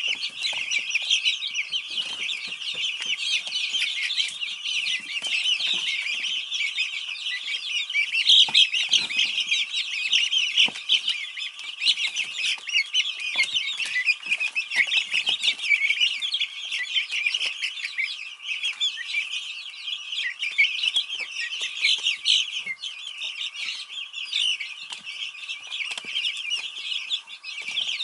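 A brood of Easter Egger chicks peeping continuously, many high chirps overlapping into a steady chatter, with scattered soft taps among them.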